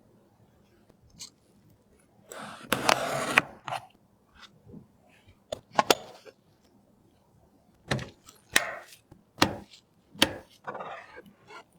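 Computer parts being handled and fitted: a scraping rustle about two and a half seconds in, then scattered sharp clicks and snaps, several of them between eight and ten seconds in.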